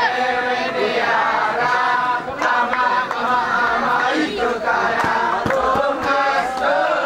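Didong Gayo group of men chanting and singing together in several overlapping voices, with a few sharp claps.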